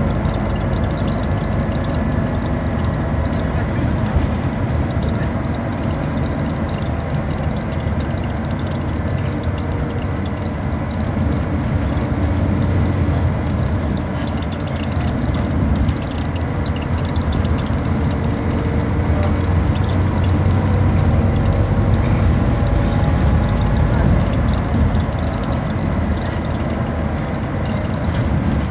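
Engine and running noise of a Scania-chassis Enviro400 double-decker bus heard from inside the passenger saloon, a steady low drone. About twenty seconds in the engine note rises and grows louder, then eases off a few seconds later.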